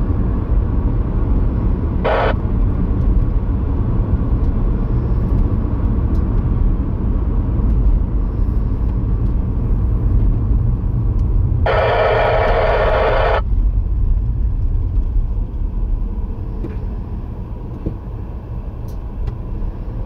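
Steady road and engine rumble inside a moving car. Two bursts of radio static cut in and out abruptly over it: a short one about two seconds in, and a longer one of about a second and a half near the middle.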